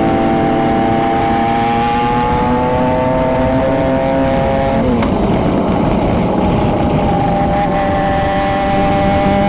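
Kawasaki Versys 650 parallel-twin motorcycle engine pulling under steady throttle, its pitch climbing slowly, dropping abruptly about five seconds in, then holding steady and rising again, over constant wind rush.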